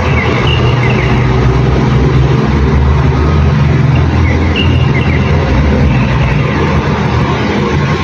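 Steady low rumble of a running engine, with small birds giving short, faint high chirps over it several times.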